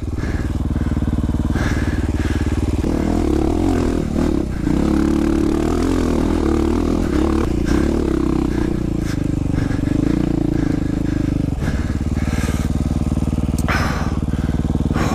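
Husqvarna dirt bike engine running as it climbs a rocky trail, pulling harder for several seconds in the middle, then easing off near the top.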